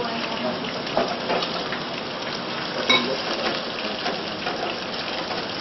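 Chicken breast pan-frying in oil in a nonstick pan, a steady sizzle, with small clicks and one sharp metallic clink about three seconds in.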